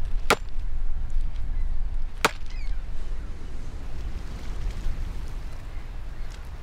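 Two sharp strikes about two seconds apart: a wooden fence post being hammered into the ground. A steady low rumble runs underneath.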